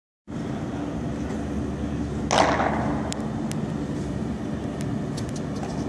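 A thrown baseball lands with one loud smack and a short echo about two seconds in, followed by a few faint clicks, over a steady low hum.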